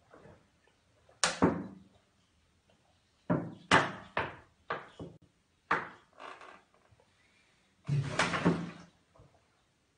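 A man gulping cooking oil straight from a large jar: a string of sharp, loud gulps at uneven intervals, with a longer run of gulps near the end.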